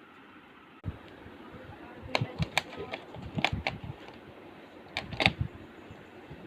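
Small computer parts being handled during thermal paste application: sharp clicks and light knocks in clusters about two, three and a half and five seconds in, over soft handling rumble.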